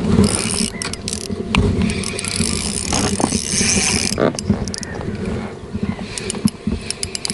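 Spinning reel being cranked, its gears whirring steadily for the first few seconds, then a quick run of sharp clicks near the end.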